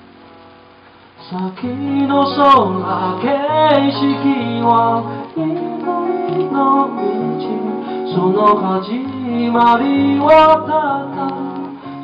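A man singing a song in Japanese over his own strummed acoustic guitar, played live; the guitar and voice come in strongly about a second in after a quieter start.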